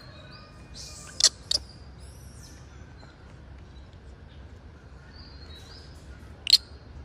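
Three short, sharp, high-pitched animal chirps: two close together about a second in and one near the end. Fainter high calls come between them over a low, steady rumble.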